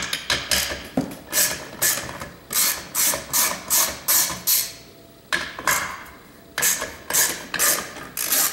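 Craftsman socket ratchet with an extension and half-inch socket clicking in quick back-and-forth strokes, about three a second, as it backs out the spring-loaded housing bolts of a line extender amplifier. The strokes pause briefly twice.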